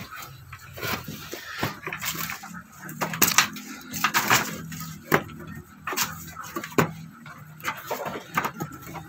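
Goats moving about on the wooden slatted floor of a raised pen: irregular knocks and clatter of hooves on the boards.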